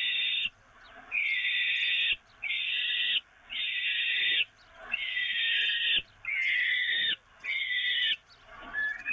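Peregrine falcon chicks giving harsh, rasping food-begging screeches while being fed, about eight calls each under a second long with short breaks between them.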